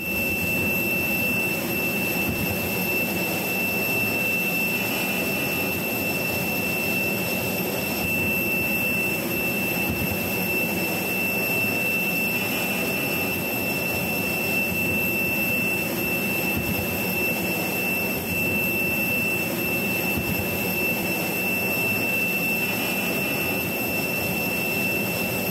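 Aircraft jet engine running steadily: an even rumble with a constant high whine over it.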